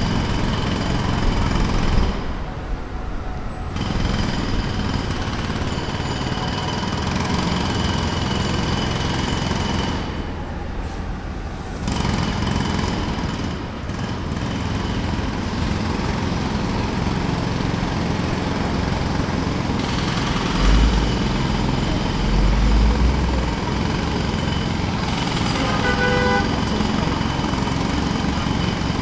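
Pneumatic jackhammer pounding steadily at a construction site, with two short pauses about two and ten seconds in while a low engine rumble carries on underneath. A brief pitched tone sounds near the end.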